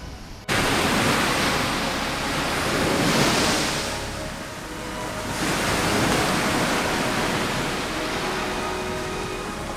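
Ocean surf breaking on a sand beach. It cuts in suddenly about half a second in, then swells and eases as the waves wash in and draw back.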